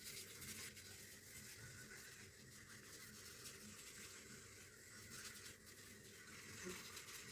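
Faint soft rubbing of hands massaging a gel face wash over wet skin, barely above near silence.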